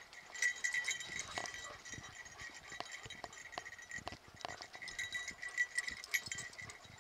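A dog whining, a steady high-pitched note that pulses louder and softer and grows louder about half a second in, over light clicks and scuffs of paws and gear.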